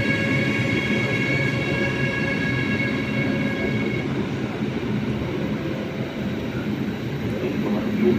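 Train running through a station: a steady rumble with a multi-tone whine over it that fades out about halfway through.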